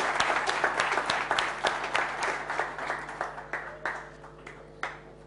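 Audience applauding, the clapping thinning out and dying away to a few scattered claps near the end.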